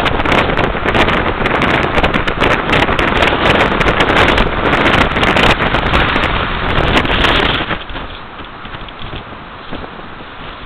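Strong storm wind buffeting the camera microphone, with breaking surf behind it. About three quarters of the way through it drops suddenly to a much quieter, steady wind noise.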